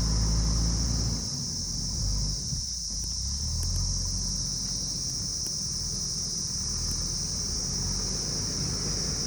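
Diesel engine of a JCB backhoe loader running, easing off about a second in and then running on steadily. A steady high-pitched buzz continues over it.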